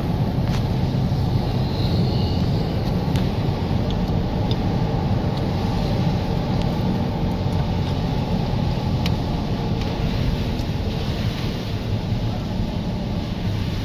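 Car driving on a wet road, heard from inside the cabin: a steady low rumble of engine and tyres, with a few scattered light clicks.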